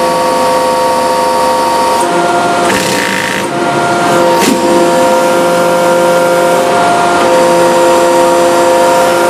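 A 500-ton hydraulic press's pump and motor run loudly with a steady whine of several tones while the ram bears down on a stack of vinyl records and then lifts. The whine shifts pitch a few times, and two or three short sharp cracks break through, about 3 and 4.5 seconds in.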